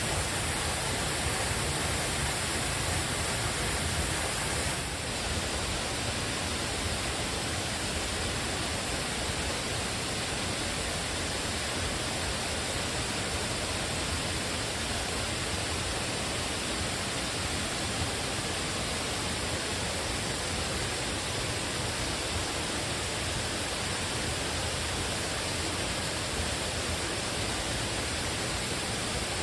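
Waterfall pouring, a steady rush of falling water.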